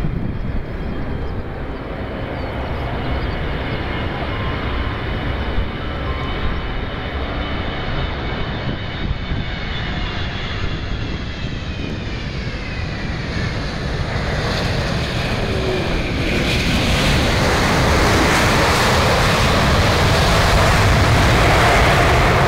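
Boeing 777-200 twin-jet landing: steady engine noise with a high whine whose tones glide downward as the aircraft passes at touchdown. About two-thirds of the way in, a broader, louder rush of engine noise builds and keeps rising to the end as the engines spool up for reverse thrust on the rollout.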